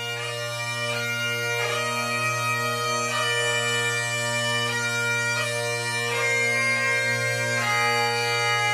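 Bagpipe music: a slow melody played over steady, unbroken drones, growing louder over the first second.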